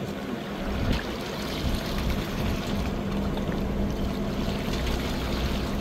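Commercial longline fishing boat's machinery humming steadily over water splashing and rushing, with a few light knocks.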